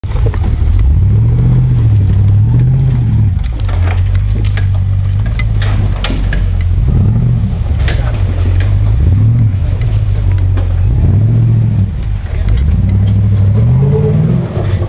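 A vehicle engine revving up and down again and again at low pitch, with scattered sharp clicks and knocks over it.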